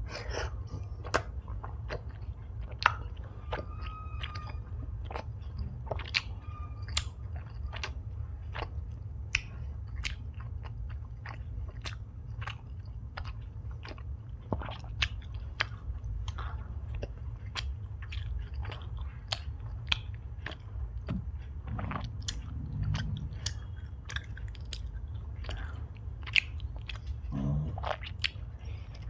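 Close-miked chewing of Indian sweets: irregular wet mouth clicks and smacks, with a steady low hum underneath.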